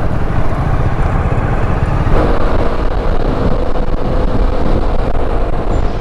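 Yamaha XMAX 300 scooter's single-cylinder engine running steadily at road speed, heard from the rider's seat with noise from the ride over it; a steady hum joins about two seconds in.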